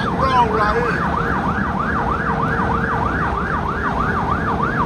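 Emergency vehicle siren on a fast yelp, its pitch sweeping up and down about four times a second, over a steady low road rumble.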